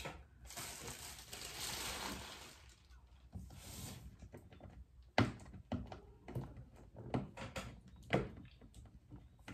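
Handling rustle for the first couple of seconds, then fingernails picking and scratching at the seal along the top of a cardboard box, heard as a string of sharp, irregular clicks and taps.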